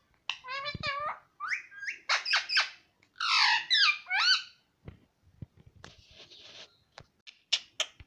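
Indian ringneck parakeet talking: a run of high, squeaky mimicked words in quick phrases, then a few sharp clicks and taps in the last few seconds.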